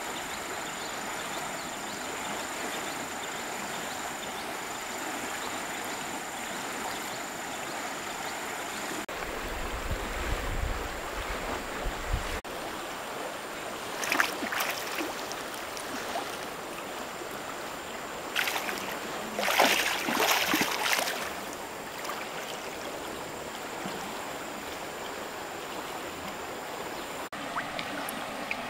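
Steady rush of a shallow river flowing, with bursts of splashing in the water about 14 seconds in and again for a couple of seconds around 19 to 21 seconds. A brief low rumble comes in around 10 seconds.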